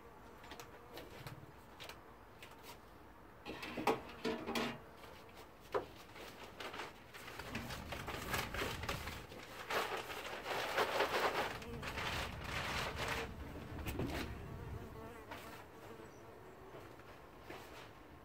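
A small ground-digging bee buzzing in irregular bursts with faint scratchy clicks as it digs into loose potting soil, loudest in the middle stretch.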